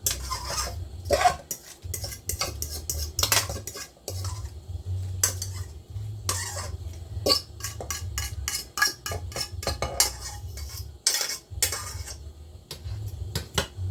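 A spoon stirring macaroni and cheese in a pot, with repeated irregular scraping and clinking of the spoon against the pot.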